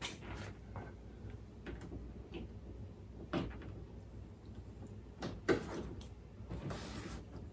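Scattered clicks and knocks of hands working plastic wiring clips and trim on a tailgate, with a sharper knock about five and a half seconds in and a short scrape or rustle near the end.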